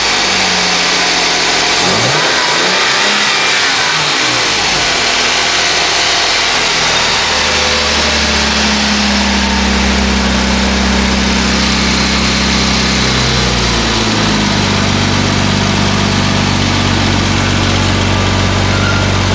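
Twin-turbocharged engine of a Ford Sierra Estate running in a garage. It is blipped up and down several times over the first few seconds, then settles into a steady idle that drops a little in pitch about two-thirds of the way through.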